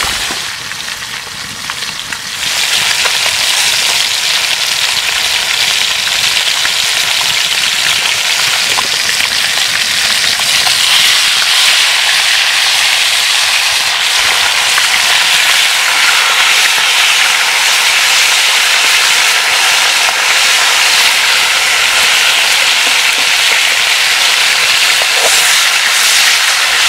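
Crucian carp frying in oil in a pan over a campfire: a steady sizzle that grows louder about two seconds in.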